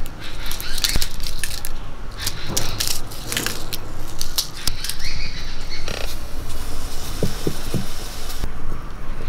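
A knife cutting through dried red chillies: a quick run of crisp crunching snaps over the first three seconds or so. After that comes a steadier hiss with a few soft knocks.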